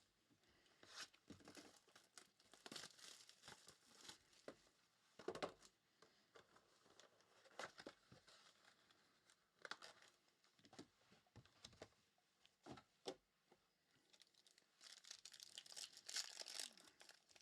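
Faint crinkling and tearing of a foil trading-card pack being opened, with light clicks and rustles of cards being handled; the crinkling is densest near the end.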